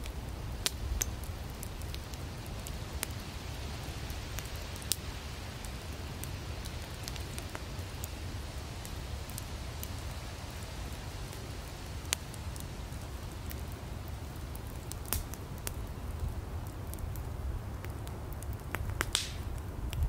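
Campfire of burning firewood crackling: scattered sharp pops and snaps over a steady low rumble, with a brief hiss near the end.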